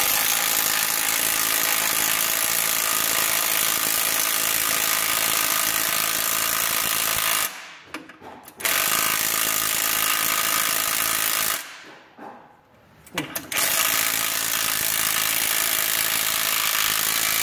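Hart 1/2-inch cordless impact wrench hammering as it drives bolts tight on a tractor's hitch bracket. It runs in three long bursts, the first about seven seconds long, with two short breaks.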